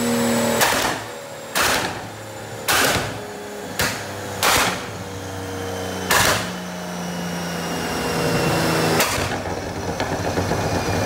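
Toyota GR Supra A90's turbocharged 3.0-litre inline-six running on the dyno through a titanium HydraTech exhaust, with about seven loud, sharp bangs from the tailpipes at irregular intervals. These are the exhaust pops of a Stage 3 tune. In the last couple of seconds the engine note runs on more steadily, with a light irregular crackle.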